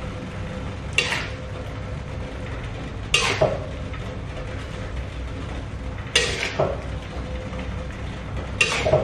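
A metal spatula scraping and clanking against a wok in four bouts a couple of seconds apart, some doubled, as cooked eggplant is scooped out, over a steady low hum.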